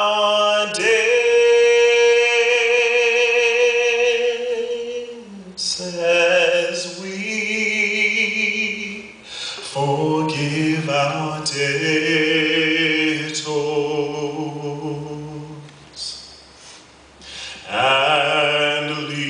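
A man singing solo into a microphone, a slow song of long held notes with vibrato. He sings in several long phrases with short breaks between them.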